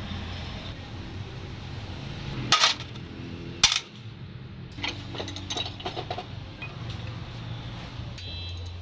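Small metal parts and tools clinking as they are handled, most likely injection-pump parts during a teardown. There are two sharp knocks about a third of the way in, then a run of lighter clicks, over a steady low hum.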